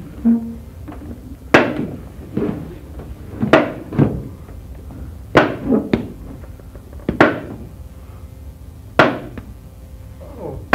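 Sharp knocks repeating at a slow, even pace, about one every two seconds, each followed by a softer hit.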